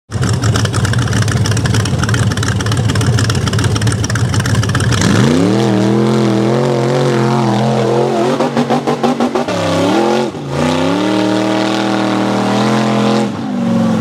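Chevrolet 502 Ramjet big-block V8 in a rock bouncer buggy running with a choppy rumble, then opened to full throttle about five seconds in, rising to a high, held scream. A few seconds later it stutters rapidly against the rev limiter while the buggy is airborne, then pulls again at high revs.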